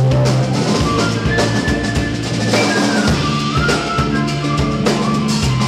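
Live Andean band music: a drum kit keeping a busy beat, an electric bass line, and a quena (end-blown cane flute) playing long held notes that step downward through the middle.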